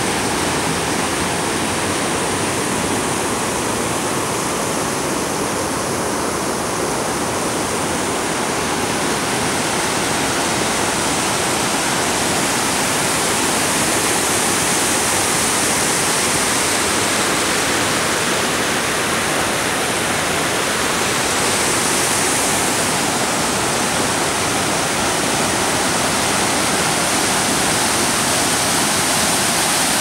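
Fox River spilling over a low dam at normal flow: a steady, even rush of water tumbling over the crest and churning white below.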